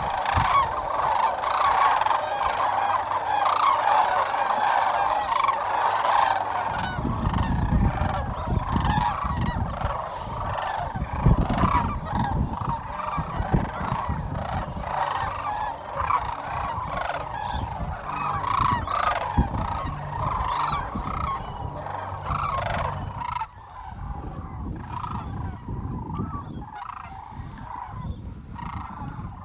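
A large flock of sandhill cranes calling all at once, many overlapping calls in a dense, continuous chorus. A low rumble runs under it from about seven seconds in until about twenty-three seconds in. The calling is quieter and thinner near the end.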